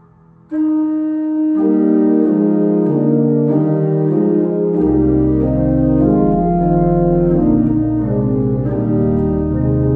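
Organ music: held chords enter suddenly about half a second in, moving in slow steps, with deep bass notes joining at about five seconds.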